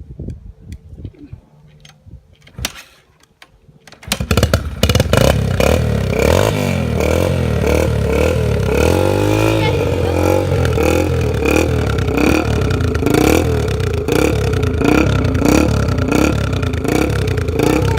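Older dirt bike engine catching about four seconds in after being hard to start, then running with its throttle blipped so the revs rise and fall. A few sharp clicks come before it fires.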